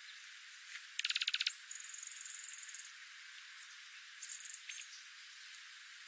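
Dark-eyed juncos calling: a couple of short high chips, then a quick run of sharp clicks about a second in, followed by high, rapidly pulsed twittering, with a second short twitter past the middle.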